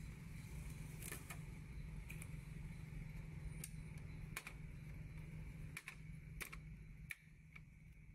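Scattered light clicks and taps of plastic parts as a new inkjet printer's paper support and tray are handled and its blue shipping tape is pulled off, over a steady low hum.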